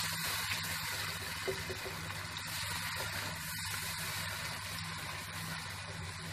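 Hot tomato-and-spice masala sizzling in a cooking pot right after water has been poured in, while it is stirred with a spoon: a steady, even hiss over a low steady hum.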